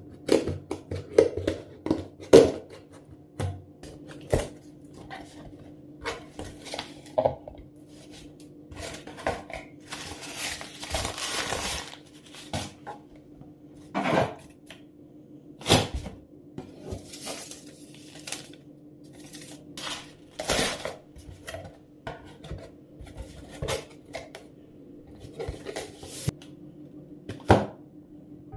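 A cardboard shipping box being opened and handled by hand: packing tape peeled off, flaps pulled open and the boxed product lifted out, with many sharp taps and knocks on cardboard and a longer rustling stretch about ten seconds in. A faint steady hum sits underneath.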